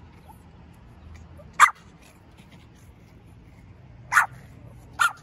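Small Pomeranian dog giving three short, sharp barks: one about a second and a half in, then two near the end. The dog is demand-barking for a piece of fruit held out of her reach.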